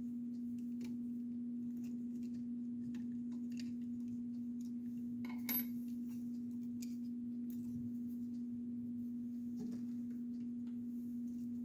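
Small screws and the metal hot-end fan shroud of a 3D printer being handled while it is taken apart: faint scattered clicks, with one louder clack about halfway through. A steady low hum runs underneath.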